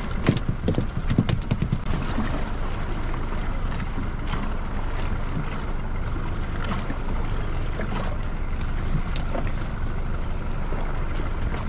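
Steady low rumble on a fishing boat at sea, with a quick run of clicks and knocks in the first two seconds and scattered single ticks after.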